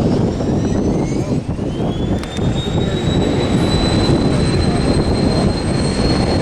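Small jet's engines spooling up to takeoff thrust: a high whine rises in pitch over about two seconds, then holds steady over a heavy rumble.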